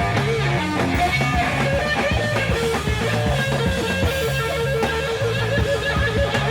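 Live rock trio music: electric guitar holding long, wavering notes over bass guitar and drums, with no singing.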